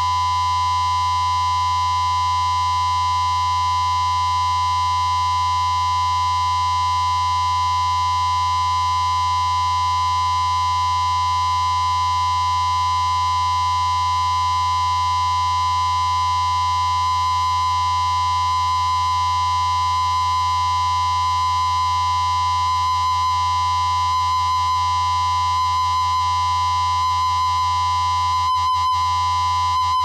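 Electronic music: a sustained synthesizer drone of many held tones, with one bright steady tone in the middle and a low hum beneath. A faint, even fluttering pulse creeps in about eight seconds in and grows stronger toward the end.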